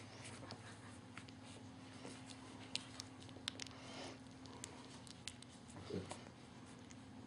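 Two-and-a-half-week-old French Bulldog puppies shuffling and nuzzling on fleece bedding: faint scattered clicks and rustling, with a short low puppy grunt about six seconds in, over a steady low hum.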